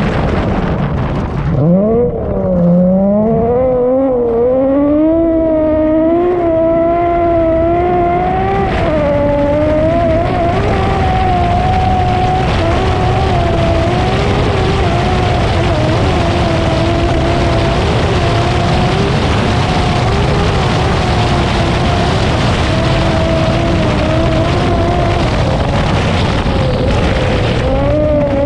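BMW M3 rally car's engine at full throttle, loud. The revs climb unevenly over the first eight seconds or so, then hold high and steady, easing slightly near the end, over a constant rush of tyre and road noise.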